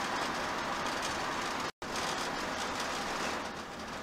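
Steady road, tyre and engine noise heard inside a motorhome cab cruising on a motorway, with a brief total dropout a little under two seconds in.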